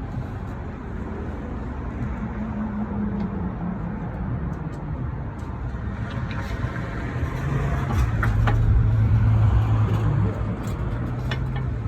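A motor vehicle engine running nearby with a low steady hum, growing louder past the middle and easing off near the end. A few light clicks come through over it.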